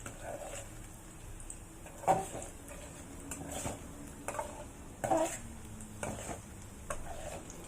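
A utensil stirring and scraping in a frying pan, knocking against the pan several times, over the sizzle of sliced onion and spices frying in oil.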